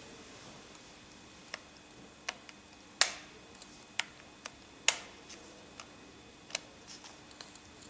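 About a dozen irregular light clicks and taps from a VITEK VT 2264 hair dryer being handled, with its motor off. The two loudest come about three seconds in and just before five seconds.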